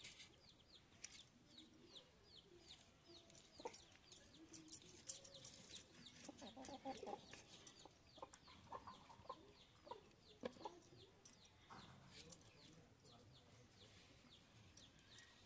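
Chickens clucking faintly, with a steady run of short, high, falling peeps and scattered soft clicks.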